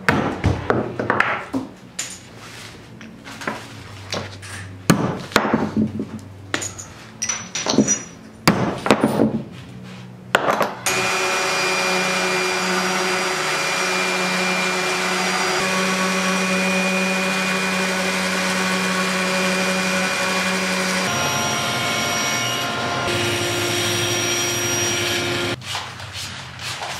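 A hammer striking a nail held on a small wooden block: a series of irregular sharp blows. Just under halfway through, a handheld electric random-orbital sander starts and runs steadily on a wooden dowel for about fifteen seconds. Its pitch shifts about ten seconds into the run, and it stops shortly before the end.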